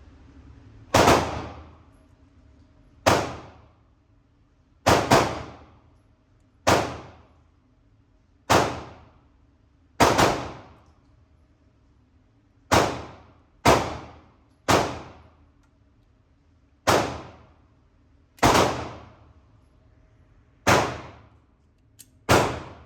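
A string of about fourteen gunshots from a firearm being fired at a target, spaced irregularly one to two seconds apart, each sharp crack trailing off in a short echo.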